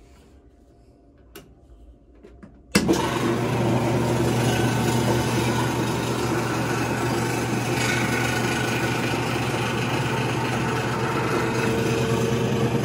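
Maytag washing machine running noisily, kicking in abruptly about three seconds in: a steady low hum under a loud, rough mechanical noise. This is the abnormal washer noise that the owner later traces to faults inside the machine.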